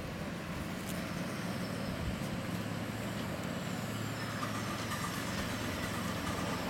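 Ride-on miniature railway locomotive running steadily along the track, a steady low hum over the rumble of its wheels on the rails.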